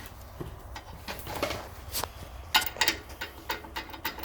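Irregular metallic clicks and clinks as a lug nut is started by hand on a top wheel stud, with the wheel hung loosely on the hub.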